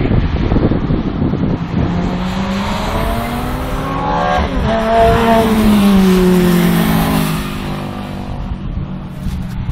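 Race car passing at speed on a track: its engine note rises in pitch as it approaches, then drops as it goes by, loudest a little past the middle, fading towards the end.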